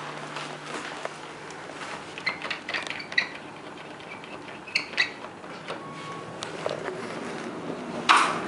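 Flohr-Otis traction elevator car: a few sharp clicks of its push buttons being pressed over a low hum, then about eight seconds in the sliding doors start moving with a sudden loud rush.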